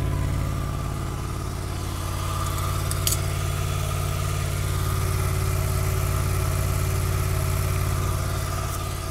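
Honda VFR800 VTEC's V4 engine idling steadily as it warms up after a cold start. There is a brief click about three seconds in.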